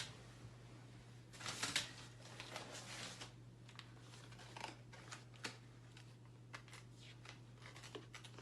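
Paper fast-food packaging rustling and crinkling for about two seconds, then scattered light clicks and taps as the wrappers and boxes are handled.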